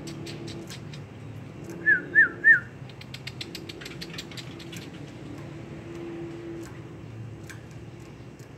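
Three quick, loud whistled notes, each sliding up and then down, about two seconds in, among a run of soft rapid clicks.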